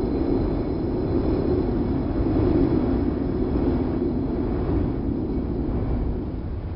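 Wind sound effect: a steady, low rushing rumble that swells a little in the middle and eases slightly near the end.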